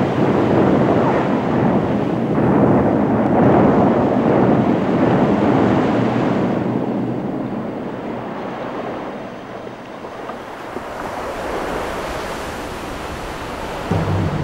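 Rushing, churning sea-water noise, loud for about the first six seconds, then dropping off and continuing softer. A low hum comes in right at the end.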